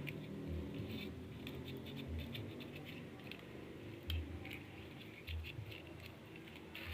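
Light scratching and scattered small clicks, with a soft low thump every second or two.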